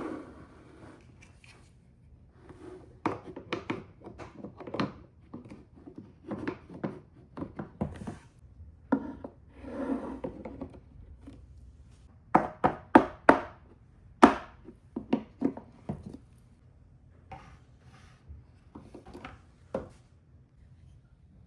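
Marbles running down a TrixTrack marble run: irregular clicks and knocks as they drop onto and bounce along the track pieces, with short stretches of rolling rumble. The knocking comes in clusters and dies away near the end.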